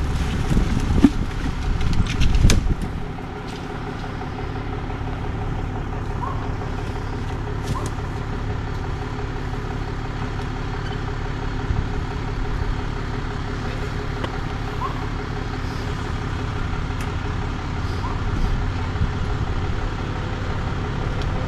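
A vehicle engine idling steadily, with louder rumbling noise in the first couple of seconds.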